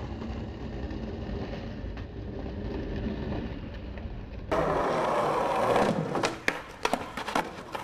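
Skateboard wheels rolling with a steady low rumble. About halfway through it cuts to louder rolling, then several sharp clacks of the board near the end.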